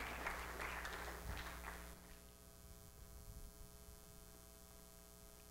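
Faint, indistinct room noise that fades out about two seconds in, leaving a quiet, steady electrical hum.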